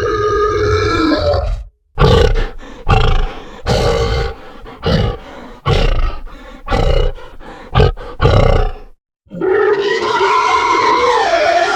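Monster-style boar sound effect: a long roar that breaks off, then a run of about eight short grunts, then another long roar near the end.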